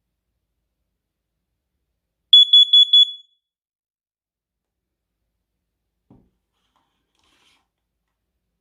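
First Alert carbon monoxide alarm sounding its test signal: four quick, loud, high-pitched beeps about two seconds in. This is the four-beep pattern CO alarms use, showing the unit works on its new battery.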